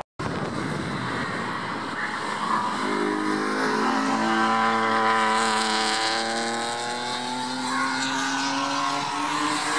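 Race car engine running hard on the circuit, its pitch climbing as it accelerates, with a short dip about six seconds in before it climbs again.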